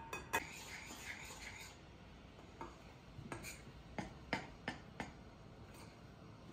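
A hand-held mesh flour sieve taps twice on a glass mixing bowl, then flour is shaken through it with a soft hiss. From about halfway on, a utensil stirring the cake mixture clinks against the glass bowl, about seven light clinks, unevenly spaced.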